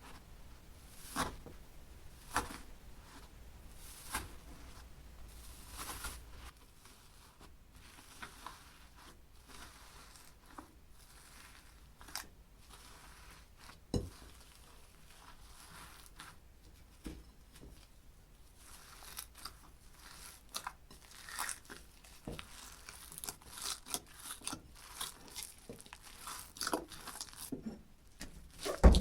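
Slime being handled by hand: sharp clicks and crackles, a few scattered ones at first, then many close together in the last ten seconds.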